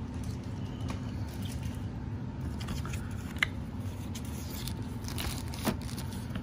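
Plastic-bagged graded comic slabs being handled in a cardboard box packed with crumpled kraft paper: light crinkling and rustling with scattered ticks and a sharp click about three and a half seconds in, another near the end.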